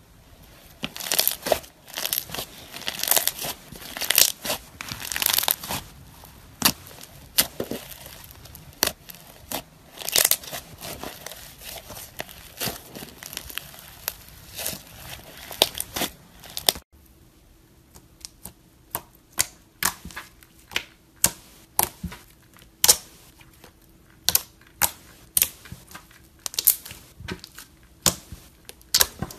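Thick beaded slime stretched and pulled apart by hand, giving dense crackling and tearing. After a cut about halfway through, soft pink slime pressed and poked with the fingers gives a run of separate sharp clicking pops, about two a second.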